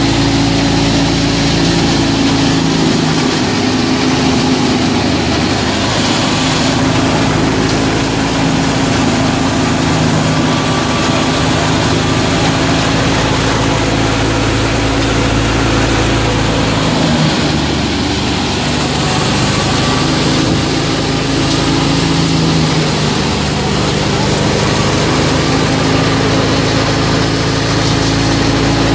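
A FIAT 640 tractor's diesel engine running steadily while it drives a wheat thresher that is threshing wheat. A steady rushing noise from the thresher lies over the engine's even note.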